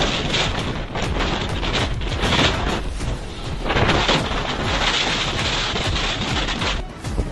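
Strong storm wind gusting hard against the microphone, a loud rushing and buffeting rumble that swells and eases in waves.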